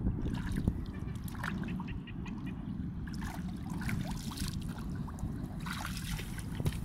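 Shallow muddy water splashing and trickling as hands and a wooden stick work in it around a wire-mesh fish trap, with a denser burst of splashing about three seconds in and again near the end.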